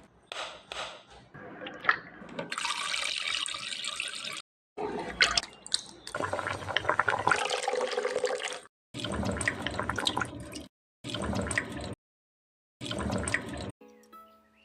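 Water running and splashing, in about five separate takes cut abruptly one after another, with short gaps of silence between them.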